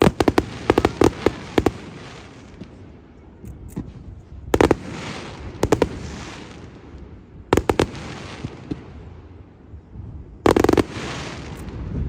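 Firework shells bursting in a display. It opens with a rapid volley of sharp bangs, then single bangs and small clusters follow about every three seconds, each trailing off slowly.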